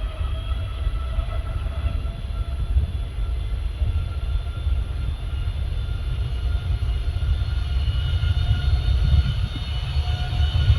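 Boeing 787-9 jet engines at takeoff power, most likely on the takeoff roll. Several whine tones rise briefly, then hold steady over a heavy rumble that grows louder toward the end.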